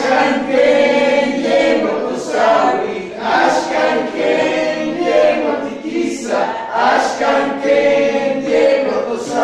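A small group of men and women singing a traditional Nahuatl song together, unaccompanied, in short repeated phrases.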